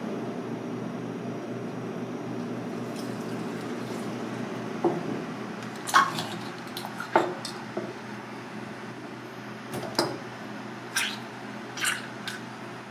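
Hard turban shells knocking and clacking against a steel counter and cutting board as they are picked up and handled: a string of sharp, irregular clacks starting about five seconds in, over a steady hum.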